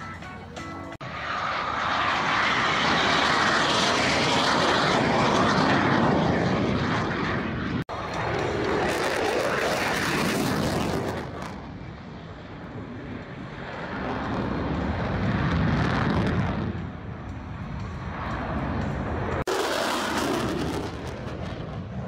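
Jet aircraft flying airshow passes: a loud engine rush that swells and fades several times. The sound breaks off sharply about one, eight and nineteen seconds in.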